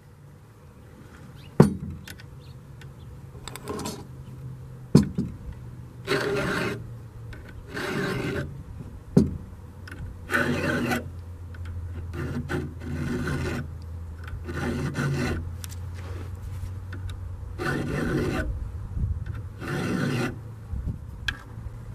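Round file rasping across the cutters of a Granberg ripping chainsaw chain, in slow strokes about one every two seconds, with a few sharp clicks in the first half.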